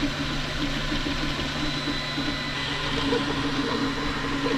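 QIDI Tech dual-extruder 3D printer finishing the last moves of a print: stepper motors whirring in short, changing tones over the steady hum of its fans.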